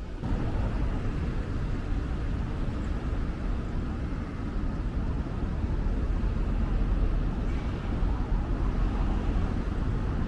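Steady outdoor ambience, mostly wind rumbling on the microphone, over a faint general hum of the surroundings.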